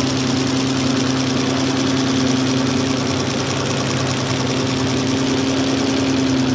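An engine running steadily at idle, with a constant low hum and an even rapid pulse.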